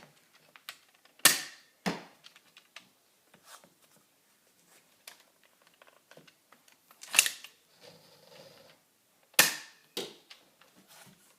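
Pull-back Nerf dart pistol being cocked and fired: three loud sharp snaps of the spring plunger, spread out over several seconds, with small clicks of handling and cocking between. Two of the snaps are followed about half a second later by a lighter knock.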